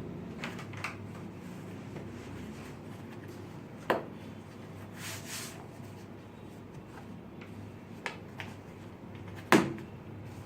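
Packaging being handled during an unboxing: two sharp knocks, the second louder, with a brief rustle and a few small clicks between them.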